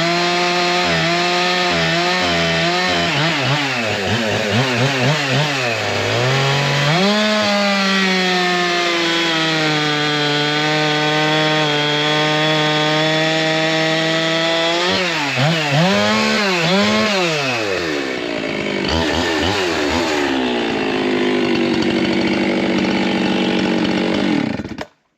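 Two-stroke chainsaw with a 32-inch bar, 7-tooth sprocket and full-skip chain, running at high speed and cutting wood. Its pitch dips and recovers a few times, holds high and steady through the middle, and the engine cuts off abruptly near the end.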